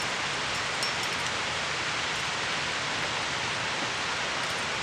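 Steady, unbroken rushing noise of the outdoors, even in loudness, with no distinct events.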